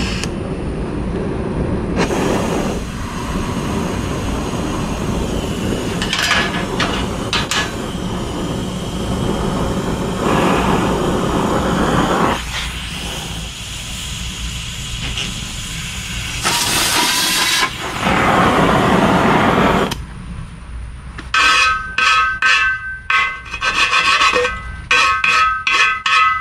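Oxy-acetylene cutting torch hissing steadily as it washes a broken bolt out of a steel casting, growing louder and brighter in several spells as the cutting oxygen is blown, then shut off about twenty seconds in. Then a quick run of sharp, ringing metal knocks as a steel bar works against the casting.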